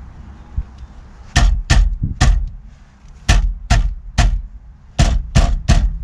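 Steering wheel of a Subaru WRX being banged by hand to free it from the steering column once the centre nut is off: nine hard thumps in three quick sets of three.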